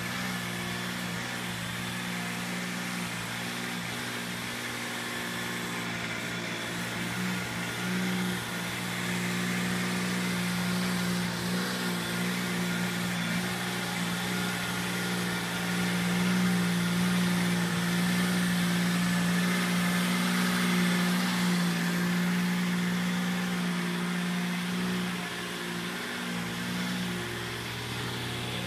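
Engine of a Dingo mini tractor running steadily while its rotavator churns through the poultry-house floor litter of rice hulls and chicken manure. It gets louder through the middle stretch and eases off again toward the end.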